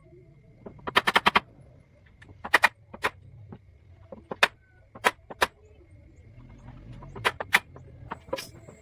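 Hammer blows at an irregular pace while building a boat: a quick run of several strikes about a second in, then single or paired strikes every second or so.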